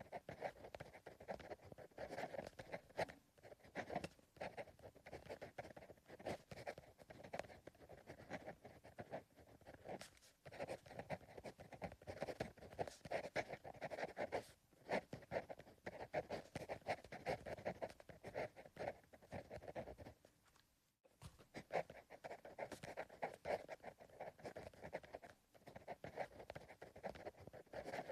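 Pencil writing on paper: soft, continuous scratchy strokes, broken by brief pauses every few seconds.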